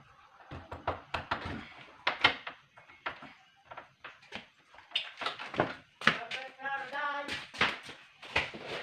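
Clicks and knocks of a doorknob's metal parts being handled and fitted back into a door after oiling, with a brief pitched squeak-like sound about seven seconds in.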